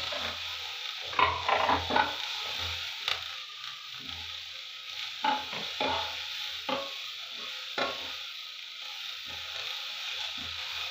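Thin-sliced vegetables sizzling in oil in a non-stick kadhai as a wooden spatula stirs and tosses them. There are irregular knocks and scrapes of the spatula against the pan over a steady hiss.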